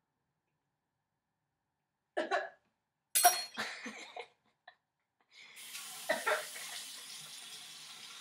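A person coughing and choking on a spoonful of dry ground cinnamon: a cough about two seconds in, a cluster of coughs a second later, then a kitchen tap starts running about five seconds in with another cough over it.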